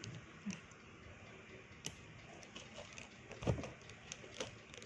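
Scattered light clicks and ticks of a handbag and its metal chain strap being handled, with a soft thump about three and a half seconds in.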